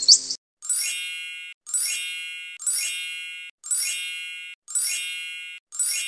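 A short high swish, then a bright chime sound effect repeating about once a second, six times. Each chime rings and fades.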